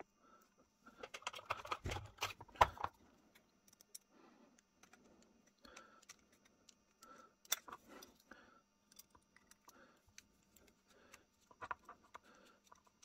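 Small metal gun parts and a screwdriver clicking and scraping against each other while a percussion pistol's lock is put back together. A burst of clicks and scrapes about two seconds in is the loudest, followed by scattered light clicks.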